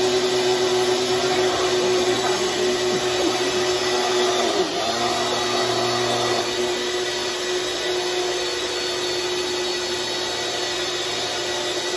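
Ninja personal blender's motor running steadily as it blends a thick drink, the cup held pressed down on the base. The pitch dips briefly about four and a half seconds in, then steadies again.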